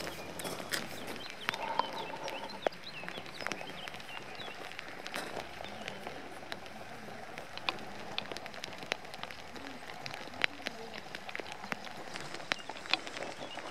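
Light rain falling, an even hiss with many scattered sharp ticks of drops landing at irregular moments.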